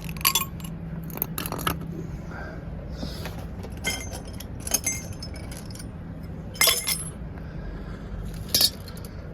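Small scrap metal parts from a stripped-down combi boiler clinking and knocking as they are handled and set down, about seven sharp clinks spread over several seconds, over a steady low hum.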